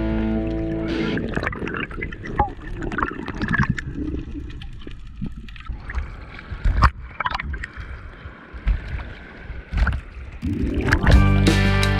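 Sea water sloshing and gurgling around an action camera at the surface, with a few sharp clicks in the middle. Rock music fades out in the first second and music comes back in near the end.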